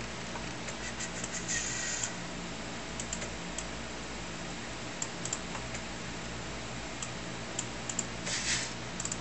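Amiga 2000 computer running with a steady low hum, with scattered light clicks and two short scraping hisses, one about a second and a half in and one near the end.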